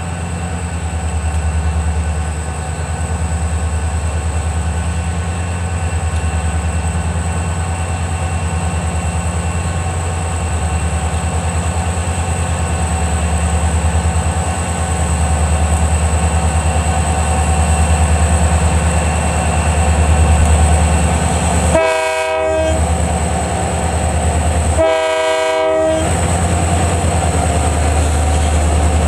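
Freight train's diesel locomotives running with a steady low drone as they approach. The lead locomotive sounds its horn twice, about a second each, around three-quarters of the way in.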